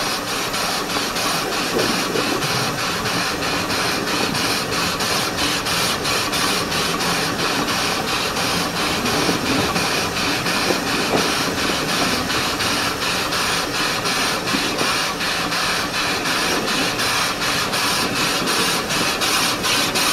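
Exmoor Steam Railway-built 12¼-inch-gauge steam locomotive running along the line: a steady loud hiss of steam with a quick, even beat of exhaust chuffs.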